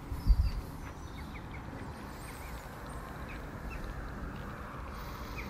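Birds calling in short chirps over a steady low rumble of wind on the microphone, with a brief bump just after the start.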